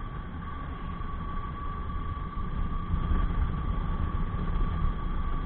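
A motorcycle on the move: its engine runs steadily under heavy low wind rumble on the microphone, with a thin steady whine. It gets a little louder about halfway through.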